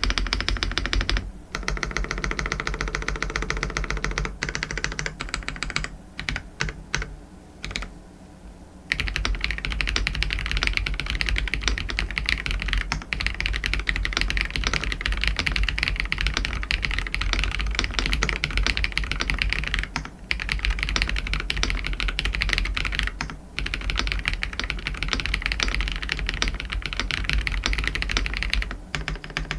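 Rapid typing on an Aula F87 Pro mechanical keyboard fitted with fully lubricated Kailh BCP switches and stock doubleshot ABS keycaps. The key strokes come densely, with a short lull of sparser strokes about a quarter of the way in.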